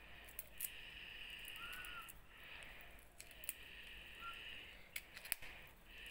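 Crows cawing, about four long harsh caws, with a few sharp clicks from prawn shells and a knife being handled in a steel bowl.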